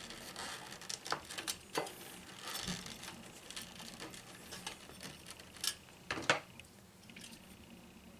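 Bundled wires and plastic zip ties being handled and fastened: scattered small clicks and ticks over light rustling.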